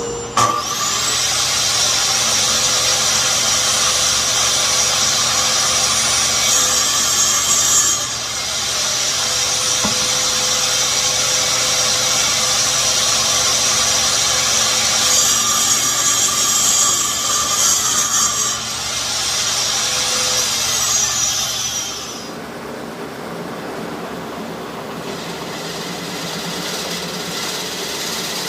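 A woodworking power machine spins up, runs steadily for about twenty seconds while working a wooden baseball bat, then winds down with a falling whine. A quieter steady machine hum carries on after it.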